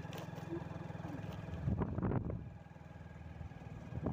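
Vehicle engine running steadily while on the move along a road, a low even rumble, with a louder noisy swell about halfway through.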